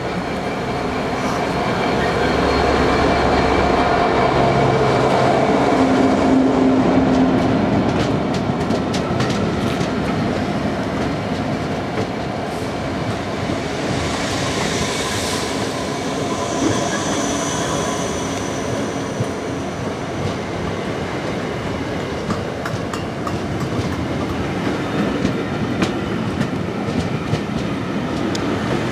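A GM-built Class 66 diesel locomotive's two-stroke V12 engine runs as it passes close by, loudest about six seconds in. After it come the unpowered Class 455 electric unit coaches it is hauling, their wheels clicking over rail joints, with a brief high squeal about halfway through.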